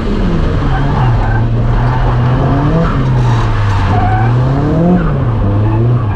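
Nissan S14a drift car's engine pulling hard, its revs falling and climbing again every couple of seconds as the throttle is worked. Under it runs the steady hiss and squeal of tyres sliding sideways.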